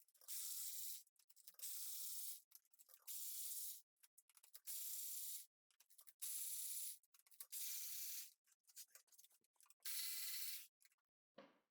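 Hand ratchet wrench worked in repeated strokes, its pawl rasping on about seven strokes spaced roughly a second and a half apart, with small clicks between them.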